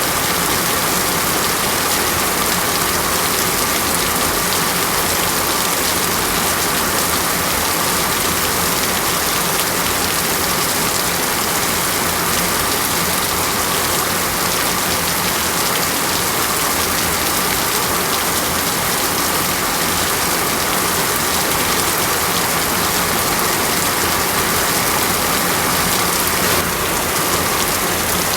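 Steady heavy rainforest rain, an even, unbroken hiss of downpour.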